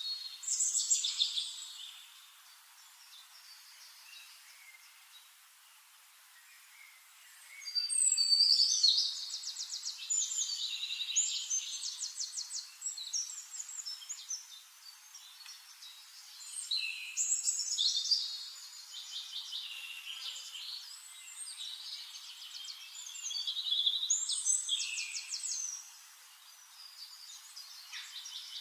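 Songbirds singing: several phrases of fast, high trills and whistles, each a few seconds long, separated by quieter pauses.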